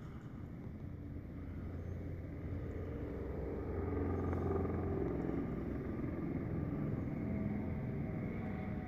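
Steady low rumble of distant road traffic heard from high above a city, growing a little louder a few seconds in.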